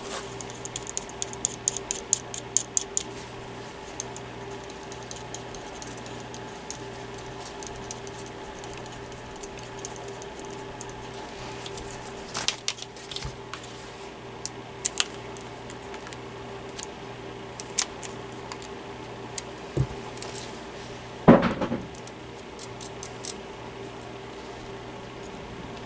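Light clicks and taps of the small shaded-pole fan motor's parts being handled and fitted back together by hand: a quick run of fine clicks in the first few seconds, scattered single taps, and one louder knock about twenty-one seconds in, over a steady faint hum.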